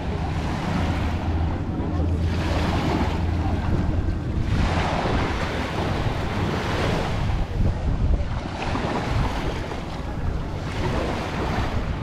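Small sea waves breaking and washing up a sandy beach, the wash swelling and fading three times, under steady wind buffeting the microphone.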